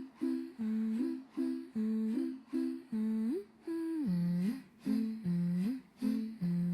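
Background music: the opening of a song, a wordless hummed melody in short phrases that slide between notes.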